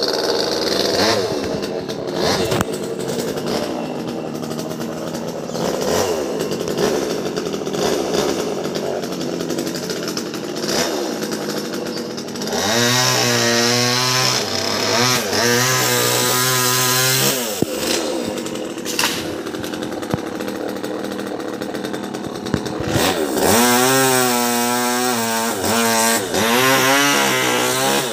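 Top-handle chainsaw running, with short blips of the throttle at first. It is then held at high revs in two long spells, about halfway through and again near the end, as it cuts branches into sections.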